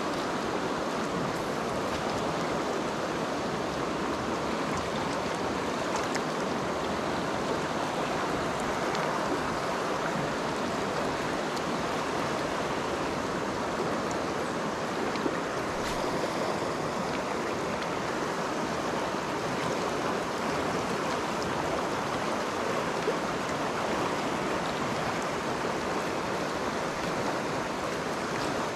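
River rapids rushing steadily over rocks, a continuous even roar of fast water. Two brief clicks stand out, about halfway through and again a few seconds later.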